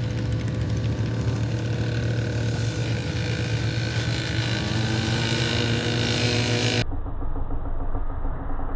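ATV engines running flat out in a dirt drag race, their pitch rising as they accelerate. About seven seconds in the sound cuts suddenly to a duller engine drone.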